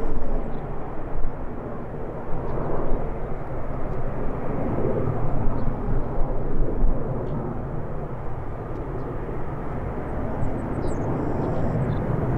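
Airbus A380-841's four Rolls-Royce Trent 900 jet engines running at low taxi power as the airliner rolls slowly after landing, a steady low rumble.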